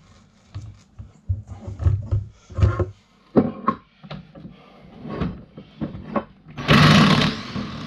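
Handling noise: scattered knocks, bumps and rubbing as the scooter and gear are moved about, with one loud clatter about seven seconds in.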